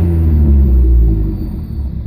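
Car engine coming down off a rev, its pitch falling and then settling toward idle. A faint high whistle rides along with it, which the owner suspects is a vacuum leak.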